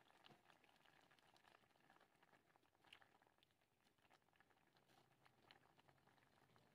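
Very faint bubbling of water boiling in a stainless-steel pot of vegetables, with scattered small ticks.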